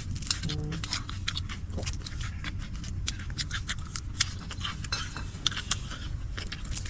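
Close-up eating sounds: chewing fried rice noodles, with many small sharp clicks and smacks from mouth and utensils, over a steady low hum.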